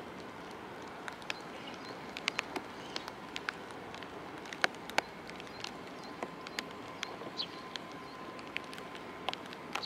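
Steady hiss of rain over the harbour, with irregular sharp taps of raindrops striking close to the microphone, a couple of them much louder than the rest. A faint steady whine joins in during the second half.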